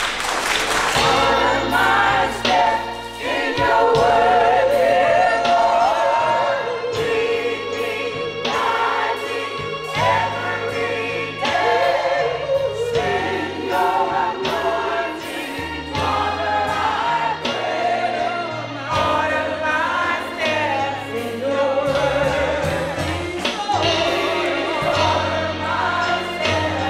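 Gospel choir singing into microphones with a bass line and a steady beat behind them.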